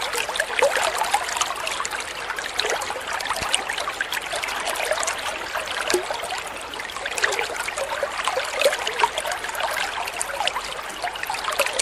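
Dental suction slurping fluid and air in a continuous crackling, bubbling gurgle.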